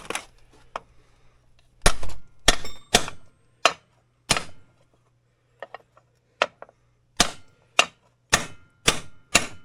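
Hammer blows on a socket used as a driver, pressing a sealed ball bearing into a 1970s Polaris snowmobile chain case. About a dozen sharp metallic strikes begin a couple of seconds in, spaced out at first, then coming about every half second near the end as the bearing goes home.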